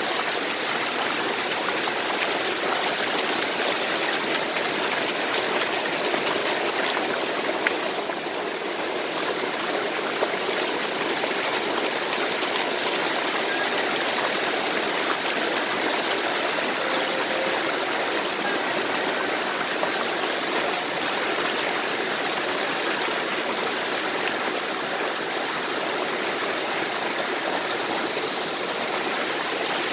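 Waterfall and stream water rushing steadily over rocks, an even, unbroken splashing.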